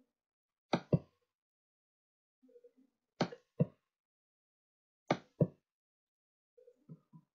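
Three sharp double clicks, each pair a quarter to half a second apart, about two seconds between pairs, with faint soft sounds between them.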